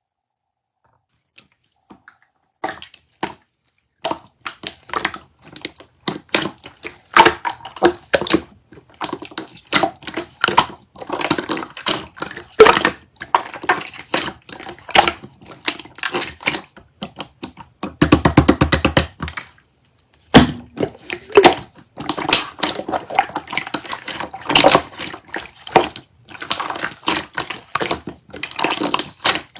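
Flower tea being made: glassware and utensils clicking and clinking in quick, irregular taps, with water splashing and pouring, including a short continuous pour past halfway.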